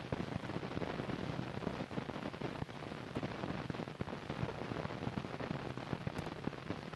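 Crackle and hiss of an old film soundtrack: a steady hiss with dense, irregular clicks and pops throughout.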